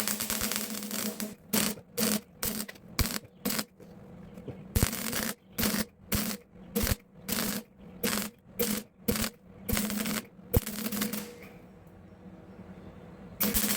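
MIG welder arc crackling as beads are laid in short stitches, about two a second, with a few longer runs, building up material on worn steel. A longer steady run starts near the end, after a pause of about two seconds.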